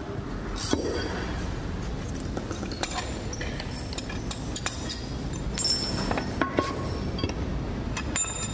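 Scattered light metallic clinks and taps, several with a short high ring, from metal parts or tools being handled, over a steady low background rumble.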